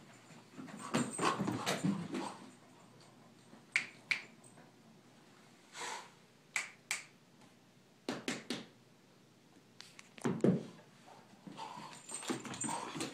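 A dog at play, making bursts of sharp clicks and short thumps, like claws on a hardwood floor, spread through with quieter gaps between.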